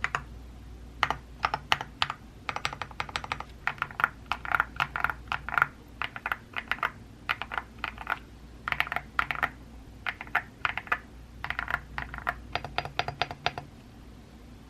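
Typing on a Womier SK71 mechanical keyboard fitted with lubed KTT Hyacinth linear switches and Osume keycaps, the modded board's creamy sound. The keystrokes come in quick runs with short pauses between them.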